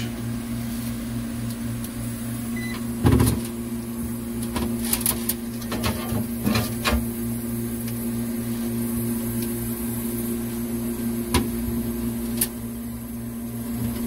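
R404A freezer compressor running with a steady hum while the evaporator fans stay silent. A few sharp clicks and knocks sound over it, the loudest about three seconds in.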